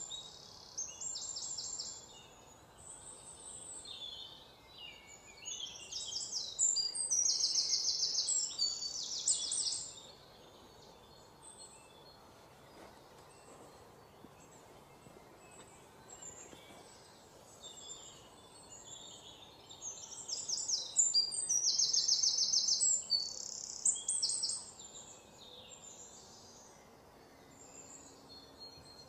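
Birds singing high, rapid trills in bouts of a few seconds, the loudest stretches a little after the start and again past the middle, with fainter chirps between.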